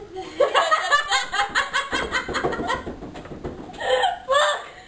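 Two women laughing hard in rapid repeated pulses, with two louder bursts of laughter near the end.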